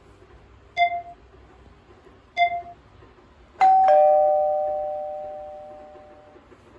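Chime: two short dings about a second and a half apart, then a two-note ding-dong, the second note lower, that rings on and fades away over about three seconds.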